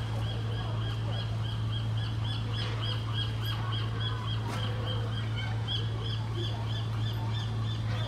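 Birds calling outdoors: one repeats a short high note about four times a second without a break, with other scattered bird calls around it. A steady low hum runs underneath.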